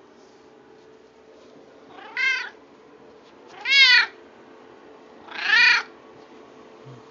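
Domestic cat meowing three times, each meow rising and then falling in pitch, the second one the loudest.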